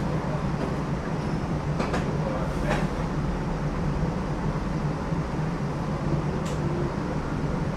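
New Orleans streetcar running along its rails, heard from aboard: a steady low hum of the motors under the rumble of wheels on track, with a few light clicks and rattles.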